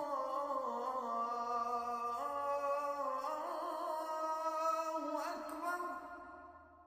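Music: a slow melody of long held notes that step to new pitches now and then, fading out near the end.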